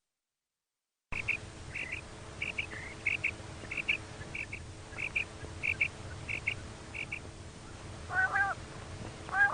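Female common quail calling: after about a second of silence, soft paired high notes repeat about every two-thirds of a second. Near the end come two louder, harsher calls with several overtones.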